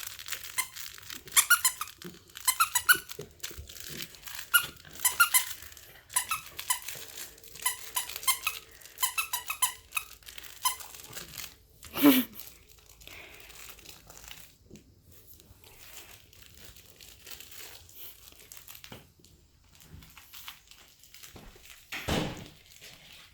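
Squeaky pet toy squeaking in quick runs of short, high squeaks as the pet chews and bites it, with some crinkling. About twelve seconds in there is one louder squeal that falls in pitch, and after that only scattered faint squeaks.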